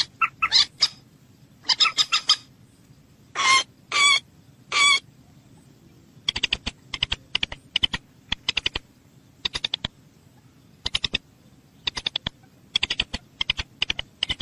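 Common moorhen calling. It starts with short harsh calls, and three longer calls come about three to five seconds in. After that it gives quick runs of three to five clipped notes, repeated roughly once a second.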